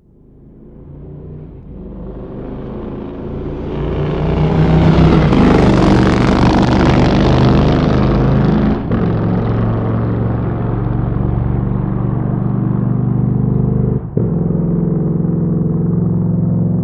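Motorcycle engine fading in from silence and growing louder, loudest about five to eight seconds in, then running on at a steady note. Two brief breaks in the sound come near nine and fourteen seconds.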